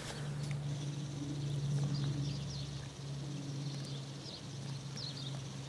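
Quiet paddock ambience: a steady low hum with a few faint, short high chirps from birds.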